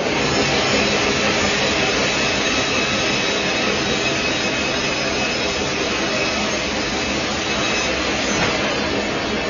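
Band sawmill machinery running steadily, a constant loud whir of the saw and its motors with a faint high whine over it.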